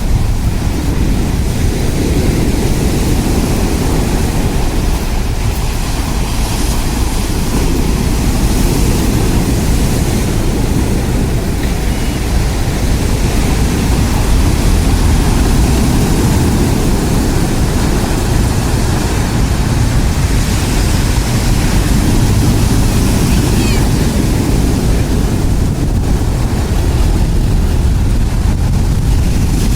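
Rough typhoon surf breaking on a pebble beach: a continuous loud roar of waves, heaviest in the low end, with no pause.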